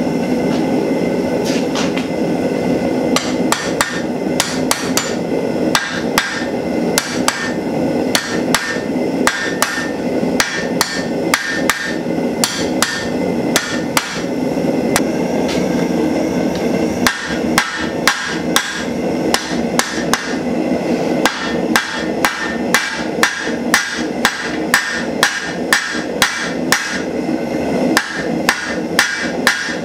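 Hand hammer striking a red-hot steel bar on an anvil, drawing the end to a point, with the anvil ringing after each blow. The blows start a few seconds in and come about two a second in the second half. A steady roar, likely the propane forge's burner, runs underneath.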